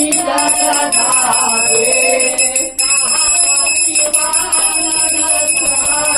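Hindu evening aarti being sung, with a puja bell ringing without pause over the singing.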